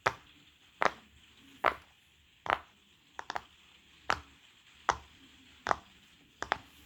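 Silicone pop-it fidget toy having its bubbles pressed one at a time: sharp pops about every 0.8 s, two of them coming as quick double pops.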